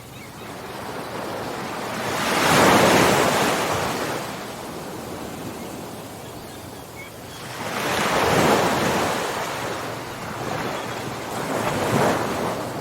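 Ocean waves washing in. Three waves swell and break, about 2.5, 8 and 12 seconds in, each fading back into a steady surf hiss.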